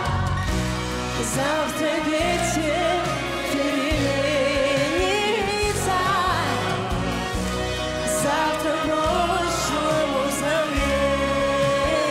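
A woman's solo voice sings long held notes with wide vibrato and quick runs over a full band backing in a pop ballad.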